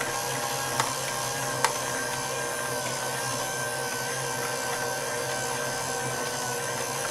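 Electric mixer running steadily on low speed with an even whine, mixing flour into creamed butter and sugar for cookie dough. Two light clicks come about a second and a second and a half in.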